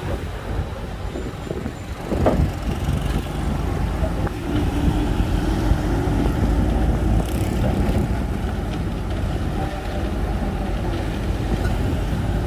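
Shantui crawler bulldozer's diesel engine running with a steady low rumble, with a sharp knock about two seconds in.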